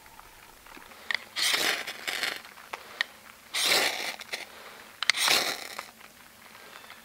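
Three short scraping, rustling bursts, each under a second, with a few sharp clicks between them.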